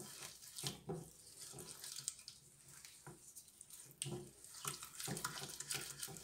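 A spatula stirring a thick, wet yogurt-and-spice marinade around a glass baking dish: irregular wet scraping and sloshing strokes, with an occasional light click against the glass.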